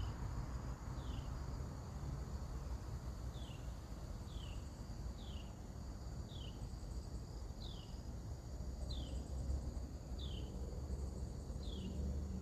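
A bird repeats a short, falling call about ten times, roughly once a second, over a steady high drone of insects and a low outdoor rumble.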